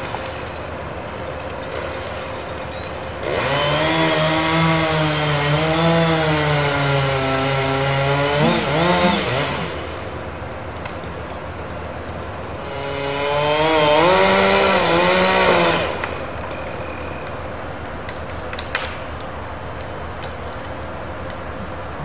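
Chainsaw running at full throttle in two bursts, the first about six seconds long and the second about three, its pitch sagging and recovering as it cuts into pine wood. Between the bursts a steadier, quieter engine drone carries on.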